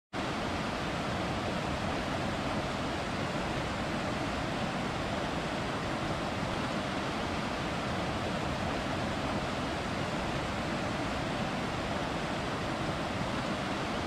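Mountain river rushing over rocky rapids: a steady, even roar of water that cuts in abruptly at the start.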